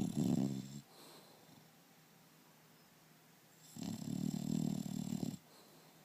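English bulldog snoring loudly: one snore trailing off just under a second in, then a second, longer snore about four seconds in.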